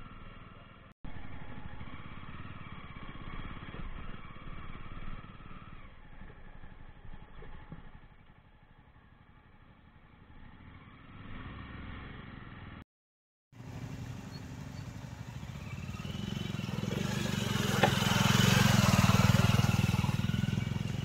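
Motorcycle engine running while riding, heard in three short cuts separated by brief gaps; the last stretch grows louder, with added rushing noise, toward the end.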